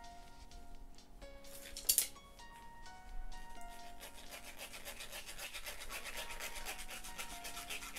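A plastic spoon scraping and stirring soaked flaxseeds against a fine stainless-steel mesh strainer in quick, even strokes of about five or six a second, pressing the flaxseed gel through. A single sharp tap about two seconds in, before the scraping starts.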